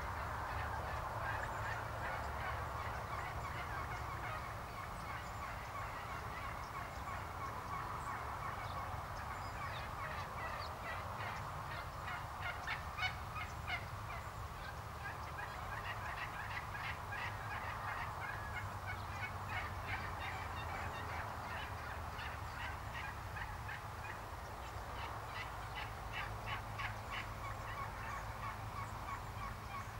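Wild turkey toms gobbling again and again, several rapid rattling gobbles overlapping, thickest through the middle and again near the end.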